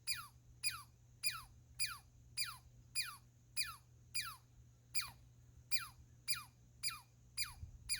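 Squirrel calling over and over, each call a sharp falling whistle that sweeps quickly from high to low, repeating evenly nearly twice a second.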